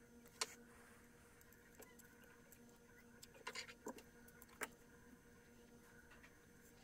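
Near silence: a faint steady electrical hum with a few soft clicks and taps of small hand work on a circuit board, one about half a second in, a little cluster in the middle, and one more shortly after.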